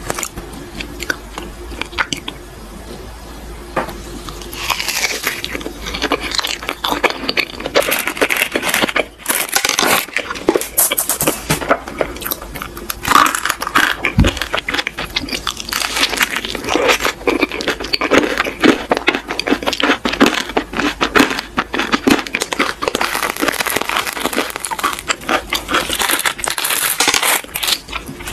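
Close-miked ASMR handling of a soft green crepe-wrapped cream dessert being squeezed, torn and pressed: a dense run of sticky crackles, crinkles and small clicks, sparser for the first few seconds and busier after that.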